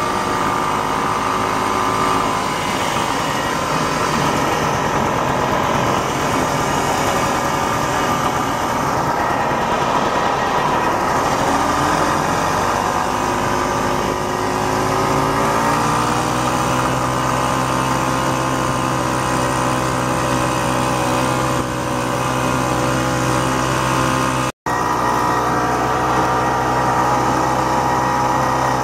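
1967 Ski-Doo Olympique's single-cylinder two-stroke engine running under way, easing off about ten seconds in, then picking up speed again and holding steady. The sound drops out for a split second about three-quarters of the way through.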